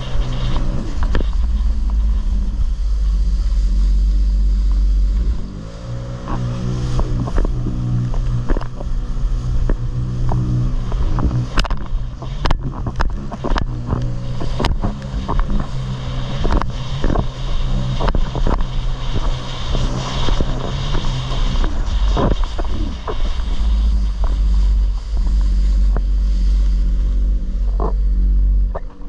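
Jet ski engine running at speed. It drops off about five and a half seconds in and climbs back up, then runs on with its pitch rising and falling. A string of sharp knocks and slaps comes through the middle.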